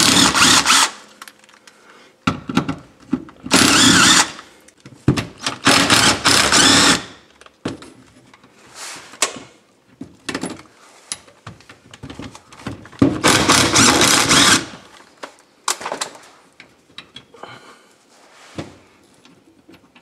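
Cordless power driver spinning in four short runs of one to two seconds, backing screws out of the pop-up camper's lift-mechanism brackets, with small clicks and knocks of handling between the runs.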